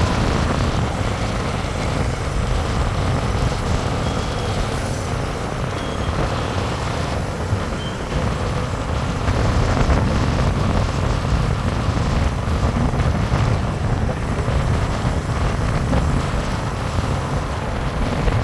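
Steady low rumble of wind on the microphone and road noise from a moving motor scooter in city traffic, its engine running underneath.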